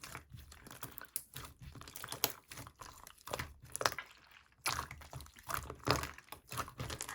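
A two-layer clear-and-opaque slime being squished and pressed by hand, making a run of irregular wet clicks, pops and crackles.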